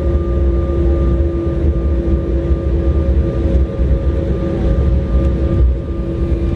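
Jet airliner's engines running at high power with a steady whine, over a heavy low rumble of the wheels as the aircraft rolls along the runway, heard from inside the cabin.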